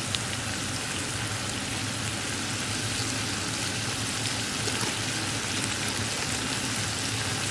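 Hot cooking oil sizzling steadily, an even hiss with faint scattered crackles.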